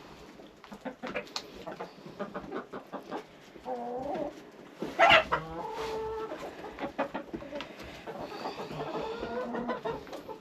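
Flock of hens clucking, with short calls throughout and one loud squawk about five seconds in.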